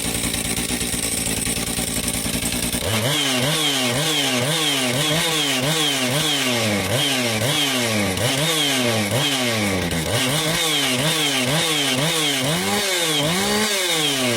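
Johnson Red CS 2255 55cc two-stroke chainsaw running on fuel heavily dosed with nitromethane: it runs steadily for about three seconds, then is revved up and down over and over, about one and a half revs a second.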